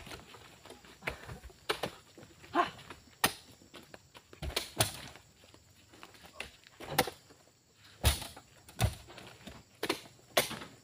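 About a dozen sharp knocks and thuds at irregular intervals, roughly one a second, with a quiet gap of about two seconds in the middle. One short pitched sound comes about two and a half seconds in.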